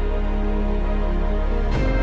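Background music of slow, held chords, changing to a new chord near the end with a brief struck accent.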